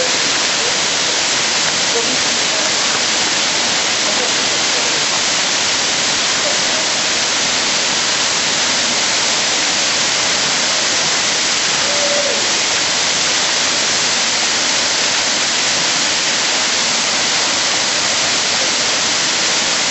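Waterfall falling, a loud, steady rush of water that is heaviest in its hiss.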